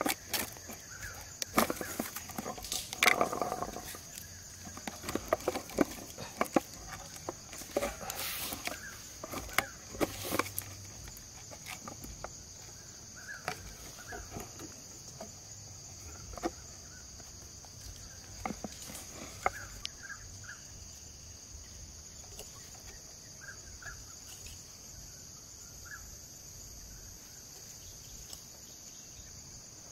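Steady high-pitched drone of insects, crickets or cicadas, with close clicks, taps and rustles of hands working bamboo sticks, string and a plastic bottle, busy for the first dozen seconds and then sparse. A few faint short chirps sound now and then.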